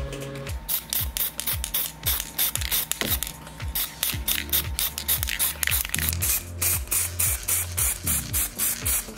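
Spray paint hissing out in quick short bursts, about three a second, starting about half a second in, over background music with a low bass line.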